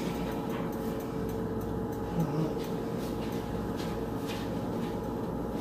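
Steady kitchen hum with a fixed tone, under faint scattered rustles of brown sugar being rubbed between fingers and sprinkled over muffin batter in a metal tin.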